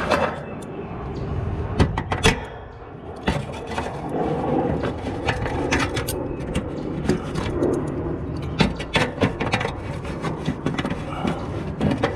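Irregular metal clicks and scrapes of pliers gripping and twisting the electrical whip's conduit fitting on an air-conditioner condenser unit, the whole fitting turning instead of loosening.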